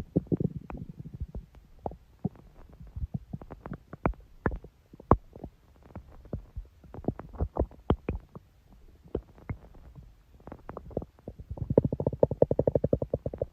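A person's stomach growling, with scattered short gurgles and pops, then a longer, rapidly pulsing growl starting about two seconds before the end.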